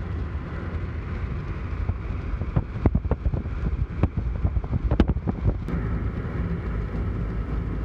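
Steady low road rumble of a car driving, heard from inside the cabin, with a few sharp knocks and clicks in the middle.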